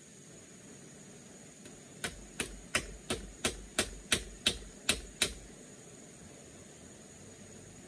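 Ten sharp knocks, about three a second, starting about two seconds in: hammering on a bamboo shelter frame where a crossbar joins an upright bamboo pole.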